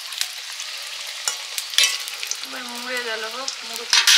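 Papri, flat rounds of dough, deep-frying in hot oil in a wok with a steady sizzle. A metal spatula scrapes and knocks against the pan a few times, loudest near the end.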